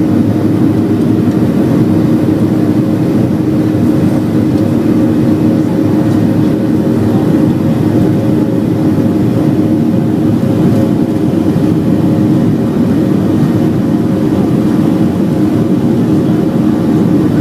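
Boeing 737-700's CFM56 jet engines running steadily at high power during takeoff, heard from inside the cabin as a loud, even low rumble with a steady hum.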